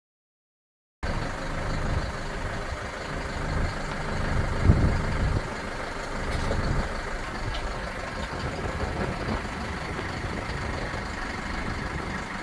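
Siromer MK504 tractor's diesel engine running steadily, cutting in abruptly about a second in, with a brief louder low surge a little before halfway.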